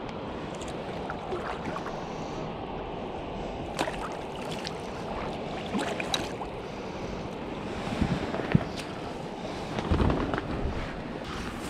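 Steady rush of river water, with scattered knocks and thumps; the loudest thumps come about 8 and 10 seconds in.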